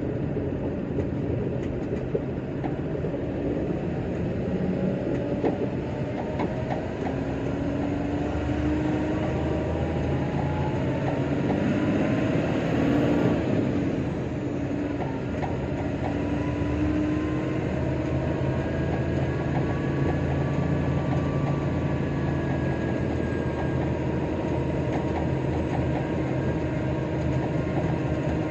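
Heavy diesel tipper truck driving, its engine note rising over several seconds, dropping about halfway through, then climbing again and holding steady, over a constant rattle and clatter of the body and load.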